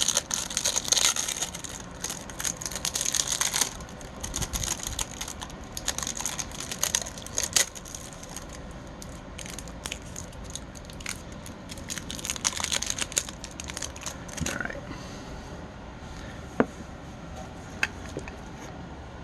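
Plastic packaging crinkling and tearing in irregular bursts as it is handled, followed by two sharp clicks near the end.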